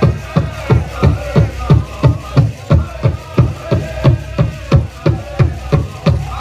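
Powwow drum group beating a steady, quick drum rhythm of about three strikes a second, with singers' high voices over it: a jingle dress dance song.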